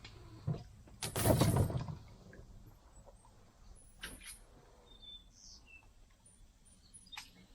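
Birds chirping faintly and sparsely over a quiet background, broken about a second in by a loud rush of noise lasting about a second, with a few faint clicks later on.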